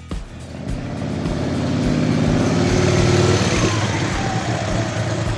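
A motor vehicle driving past close by: its engine grows louder to a peak about three seconds in, then eases off as its pitch drops.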